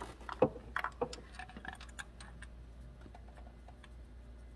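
Small metallic clicks and clinks from a spark plug starter tool and a spark plug being threaded by hand into the plug well. A cluster comes in the first two seconds, with the sharpest click about half a second in, and fainter ticks follow.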